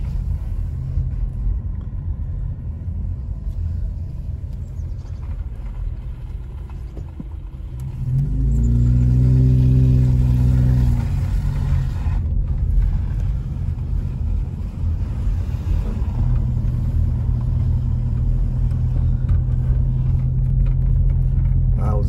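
Car engine and road rumble heard from inside the cabin while driving slowly. About eight seconds in the engine pulls louder for about three seconds as the car accelerates, then drops back to a steady run.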